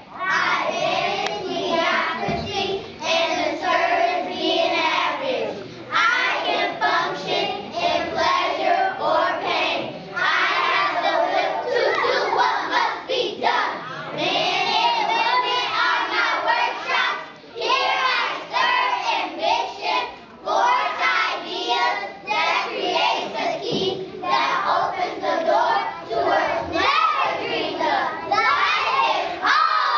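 A class of young children's voices chanting a poem together in unison, many voices at once.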